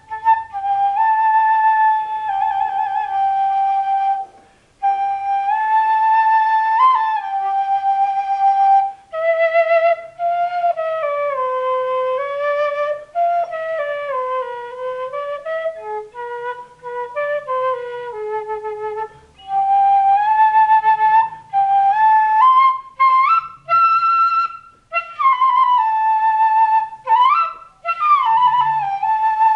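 Quena, the Andean notched end-blown flute, played solo in a slow improvisation. Long held notes with vibrato and melodic phrases that slide down and back up in pitch, broken by short pauses between phrases.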